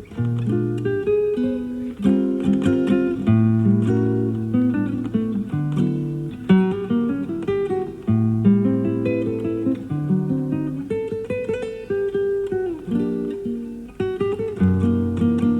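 Classical guitar played live: a steady run of plucked melody notes over sustained bass notes. Recorded off FM radio onto cassette tape, with little treble above the midrange.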